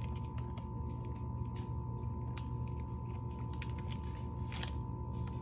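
Bubble pop slime being squished and stretched by hand, giving irregular small clicks and pops.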